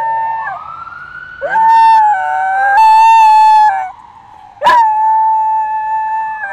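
Small dog howling in long, drawn-out notes, three howls in a row, along with a wailing siren that sweeps up and down in pitch behind it.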